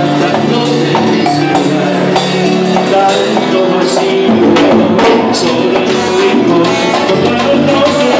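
Live Latin band playing loud, with drum kit, cymbals and percussion strikes over keyboard, heard close to the drums on stage.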